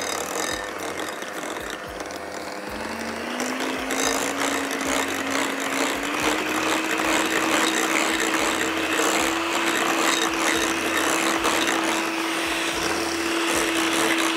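Electric hand mixer running with its beaters in cream cheese and curd cheese in a glass bowl, beating the mixture smooth so no lumps remain. The motor's whine rises in pitch in two steps, about three and six seconds in, then holds steady.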